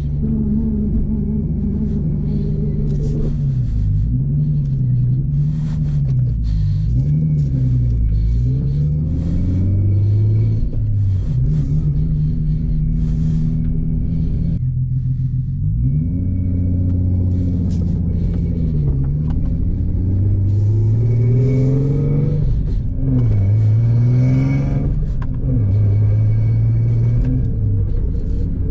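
Infiniti G37's V6 engine running as the car is driven, revs repeatedly climbing and falling back.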